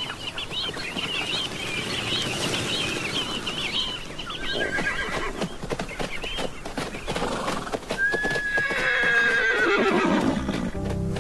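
Wild Namib desert horse whinnying: one long neigh about eight seconds in that starts high and falls steadily in pitch, after a shorter call near four and a half seconds. Hooves clop on and off throughout, and a flock of Namaqua sandgrouse chirps busily over the first few seconds.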